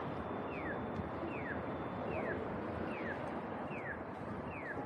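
Accessible pedestrian crossing signal chirping during the walk phase: a short falling electronic chirp repeating evenly a little more than once a second, over steady street and traffic noise.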